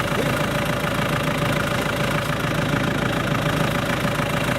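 Off-road vehicle's engine running steadily close by, with a steady whine held on one pitch above it.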